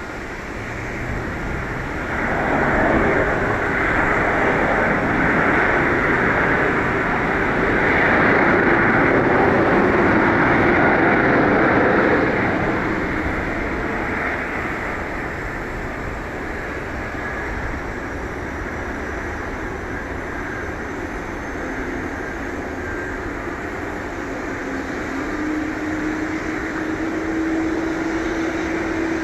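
Airbus A330-200 airliner with Rolls-Royce Trent 700 engines landing: a broad jet rumble that swells about two seconds in, stays loudest for about ten seconds, then eases to a quieter, steady rumble.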